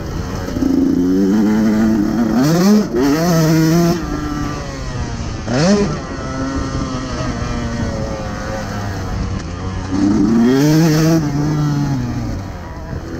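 KTM 150 SX two-stroke dirt bike engine being ridden hard. Its pitch climbs sharply about two seconds in, blips briefly near the middle, climbs again near the end and then drops off as the throttle closes.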